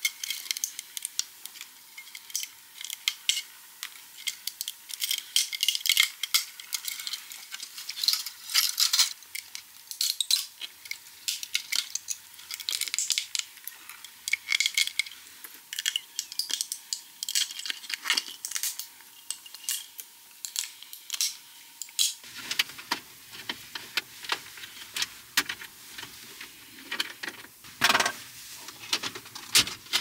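Small hard parts clicking, clinking and rattling as they are handled, in many quick irregular knocks. About two-thirds of the way through, a faint steady high tone stops and a low background rumble comes in.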